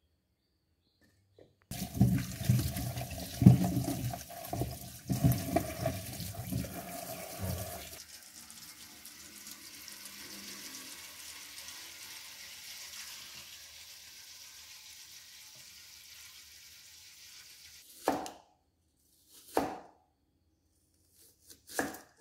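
Tap water running into a stainless steel bowl. It is loud and uneven at first, then after about six seconds it settles into a softer, steady rush as the bowl fills. Near the end come three short knocks of a cleaver cutting onion on a wooden chopping board.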